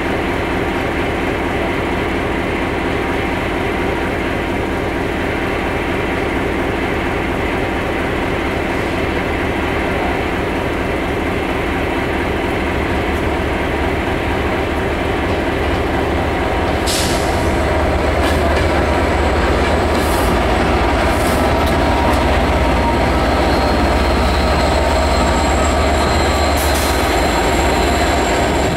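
Slow-moving diesel-hauled train passing: the Class 67 locomotive's two-stroke V12 diesel engine runs steadily as it pushes the unpowered driving van trailer, growing louder about two-thirds of the way through as the locomotive draws level. A few sharp clicks come from the wheels on the track.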